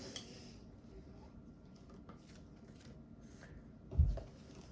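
Trading cards being handled and slid through the hand, a short rustle at the start and faint ticks and rustles after it. About four seconds in there is a single low thump, the loudest sound, as of the table or microphone being bumped.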